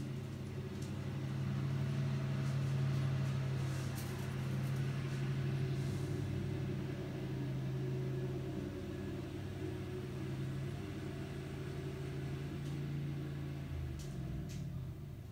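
A steady low hum from a running motor. Near the end it winds down in pitch and stops.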